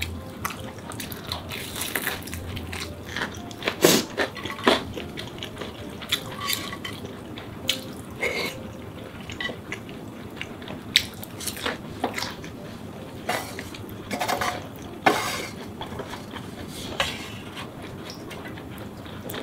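Eating sounds: chopsticks and a white soup ladle clicking and scraping irregularly on a metal ramen pot and dishes, with wet slurps and chewing of noodles.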